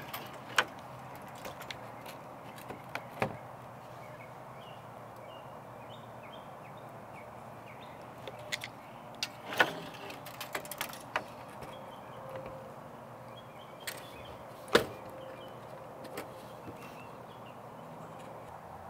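Scattered sharp clicks and knocks from handling a tape measure and fiberglass mast tubes on a table, the strongest two about ten and fifteen seconds in, over a steady quiet background hiss.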